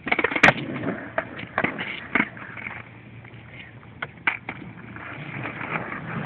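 Skateboard on asphalt: a sharp clack of the board about half a second in, then several lighter knocks and the wheels rolling.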